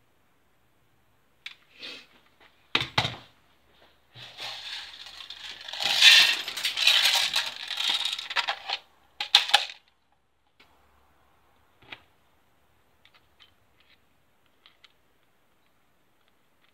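Small hard parts of an airsoft rifle being handled: a few sharp clicks, then several seconds of dense rattling and clattering, followed by scattered faint ticks.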